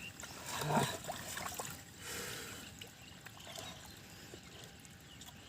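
Faint sloshing and trickling of shallow water, with a few short soft splashes.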